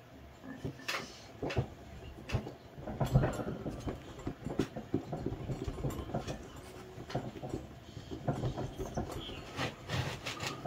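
Hands working soft clay and rolling a clay coil on a wooden table: irregular soft thumps, taps and rubbing, with one sharper knock about three seconds in.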